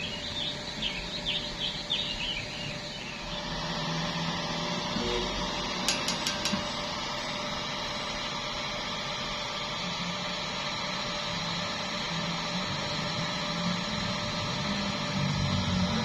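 Stick welding arc: a steady hiss that sets in about three and a half seconds in, with a few sharp clicks around six seconds.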